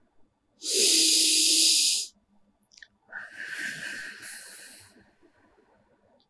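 A woman breathing slowly and audibly: a hissing breath in through the nose for about a second and a half, then a longer breath out through the mouth that fades away, as in a deep-breathing exercise.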